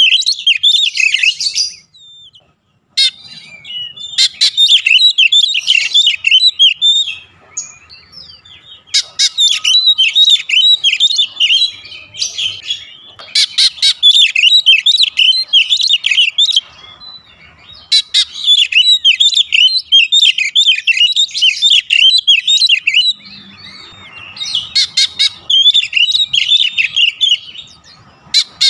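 Oriental magpie-robin singing: long runs of rapid, varied chirps and warbled whistles, broken by short pauses every several seconds.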